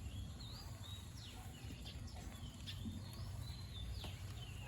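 Small birds chirping: a string of short, high, sliding call notes, two or three a second, over a low steady rumble.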